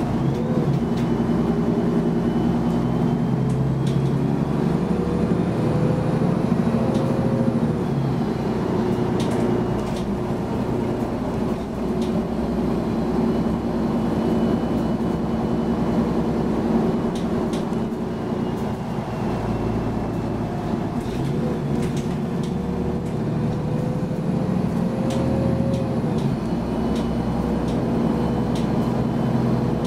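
Cabin sound of a Mercedes-Benz Citaro G articulated bus under way, its OM 457 hLA diesel and Voith automatic gearbox running with a steady low hum. Twice a whine climbs in pitch for several seconds and then drops away abruptly, once about a second in and again past twenty seconds. Scattered rattles run through it.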